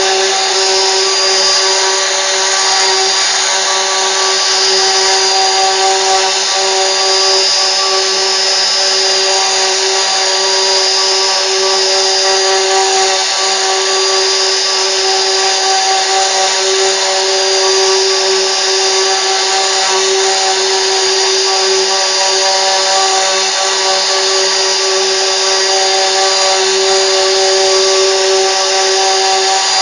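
CNC router spindle running steadily, with a constant whine over a dense hiss.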